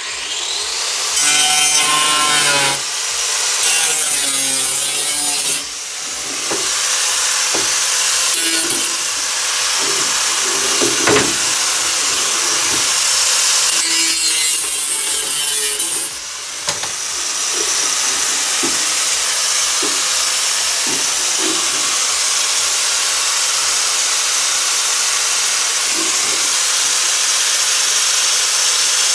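A power tool cutting through the bottom of an old container, running continuously with a harsh hiss and easing off briefly twice.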